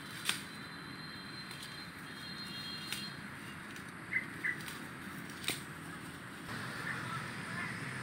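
A cow browsing in bushes: a few sharp snaps and rips of leaves and twigs, several seconds apart. Birds chirp in the background, and a thin steady high buzz runs through the first three seconds.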